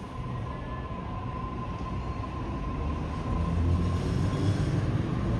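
Sydney Trains Waratah (A set) electric train pulling away from the platform. A thin steady tone fades out about halfway, while a low rumble grows steadily louder.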